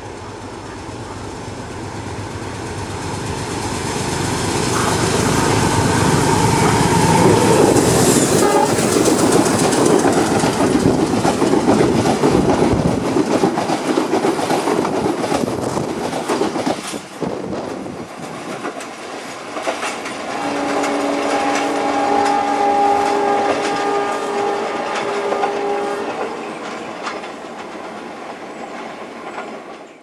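A diesel passenger train approaches and passes close by, its rumble and the clatter of wheels over rail joints building to a loud run. Later a train horn sounds a steady chord of several notes for about five seconds.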